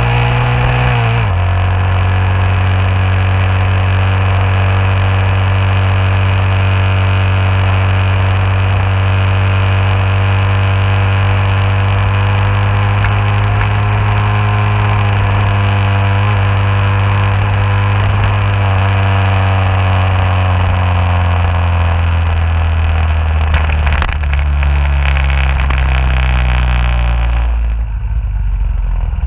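Yamaha 135LC underbone motorcycle's single-cylinder engine cruising at steady speed under loud wind rush. The engine note steps down about a second in, and near the end the revs drop as it slows and the wind noise falls away.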